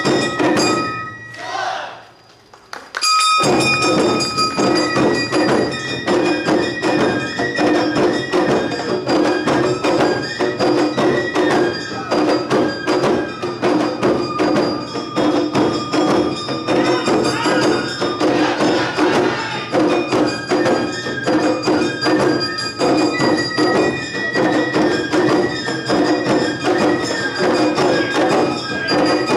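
Awa Odori festival music: the narimono ensemble of shamisen, shinobue flute, kane hand gong and drums plays a brisk, steady two-beat rhythm. It breaks off for about two seconds near the start, then starts up again.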